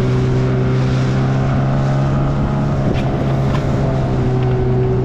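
Boat engine running at a steady speed, a low even drone, with a couple of faint clicks about three seconds in.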